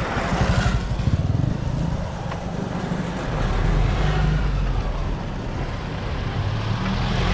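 Engine of a small vehicle running as it drives slowly along a street, a low rumbling note with road noise.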